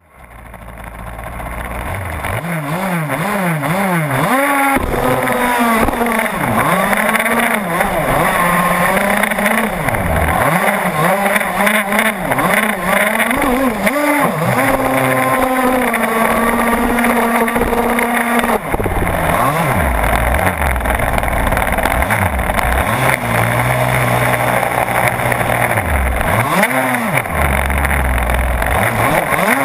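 Small engine of a radio-controlled speedboat running at speed, heard from on board, its pitch swinging up and down again and again with the throttle and held steady for a couple of seconds midway, over the hiss of water spray off the hull. It starts faint and rises over the first few seconds.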